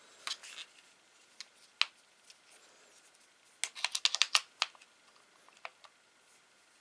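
Sharp clicks and taps of an Olight PL-1 weapon light being handled and fitted onto a pistol's accessory rail: a few scattered clicks, then a quick run of clicks about halfway through as it slides on and locks into place, and a couple more after.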